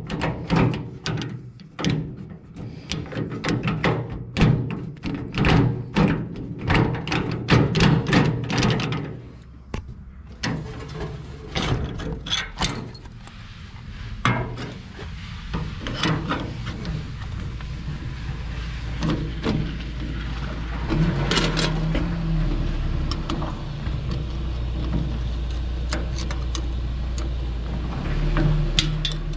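Gear lever of a Tofaş four-speed gearbox being worked back and forth through the gears, a quick run of metallic clunks and clicks for the first nine seconds or so. Then quieter, scattered tool clicks as the gaiter is lifted and a spanner goes onto a bolt under it, over a steady low hum in the second half.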